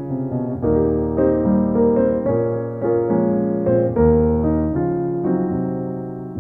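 Background piano music: soft chords and a gentle melody, notes struck every half second or so.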